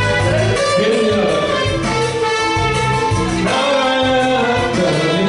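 A man singing into a microphone over a Latin-style backing track. His voice comes in about half a second in and again about three and a half seconds in, over a steady pulsing bass.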